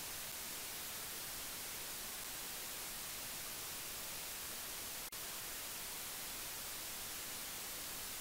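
Steady hiss of electronic noise, like microphone or line static, with a momentary dropout about five seconds in.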